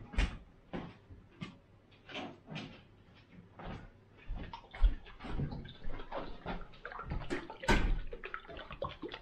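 Irregular knocks, taps and clatters of household objects being handled while someone fetches a jar of salad dressing, with cupboards or jars moved about. There is a louder clatter shortly before the end.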